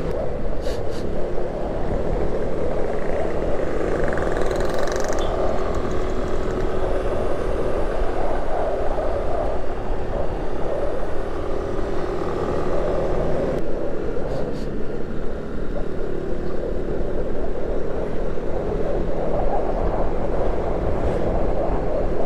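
Honda Vario 125 scooter's single-cylinder engine running steadily while riding, mixed with wind and road noise on the microphone.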